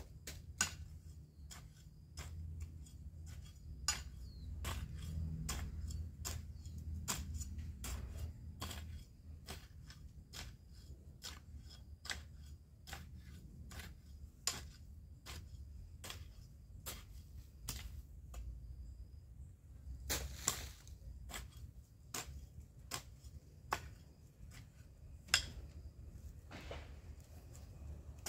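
A hoe chopping into garden soil, with sharp strikes coming about once or twice a second at an uneven pace.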